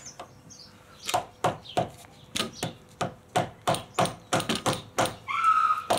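Quick repeated taps on a 22 mm spanner, about three a second, starting about a second in, to break loose a tight fork top bolt. A short high ringing tone sounds near the end.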